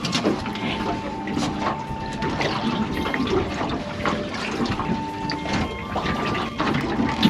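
Water sloshing and splashing, with many small irregular splashes and drips.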